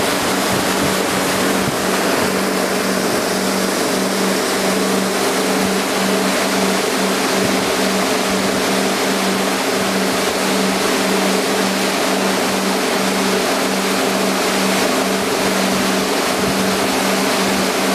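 Boat engine running steadily at cruising speed, a constant drone, over the continuous rush of water and spray along the hull and wake.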